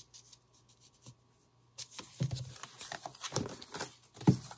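Paper rustling and soft knocks as a book-page concertina book is handled and lifted off the table, starting about two seconds in.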